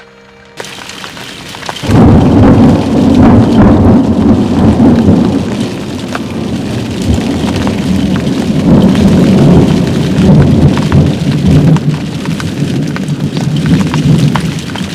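Thunderstorm: heavy rain pelting down with many sharp drop hits over a continuous low rumble of thunder, loud, setting in about two seconds in.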